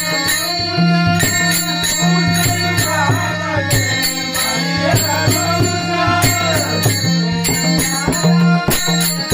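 Marathi Warkari bhajan: a drawn-out devotional vocal melody over small hand cymbals (taal) struck in a steady beat.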